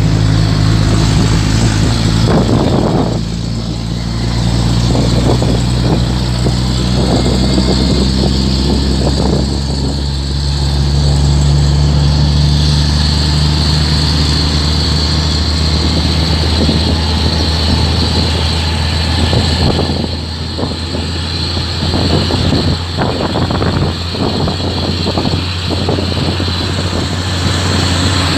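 Truck engines at road speed heard from a moving vehicle: a steady low engine drone with wind and road noise and scattered rattles, easing off briefly about twenty seconds in.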